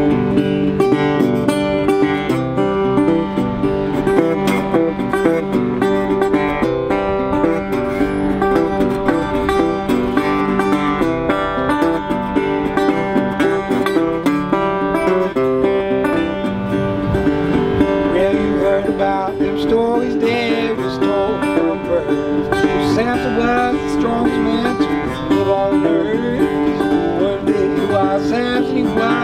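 Metal-bodied resonator guitar playing a solo blues break, steady and busy, with some notes gliding in pitch in the second half.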